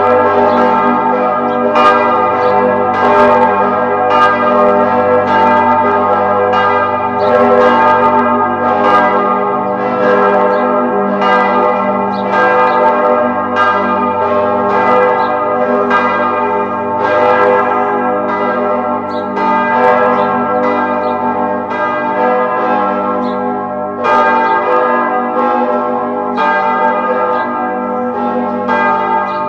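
Church bells ringing, struck in a steady, uneven stream of about two strokes a second, each stroke's tone hanging on and overlapping the next into one continuous ring.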